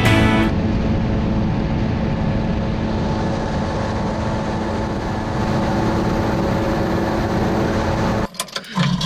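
Motor vehicle driving: steady engine and road noise. It breaks off abruptly near the end.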